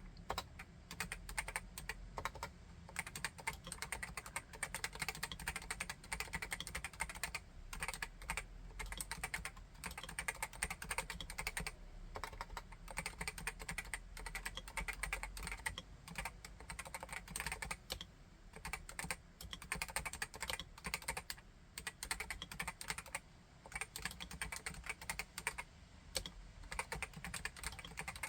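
Continuous fast typing on a Realforce RGB TKL keyboard with Topre electrostatic capacitive switches (45 g uniform, rubber-dome cups): a dense run of several keystrokes a second with a few brief pauses.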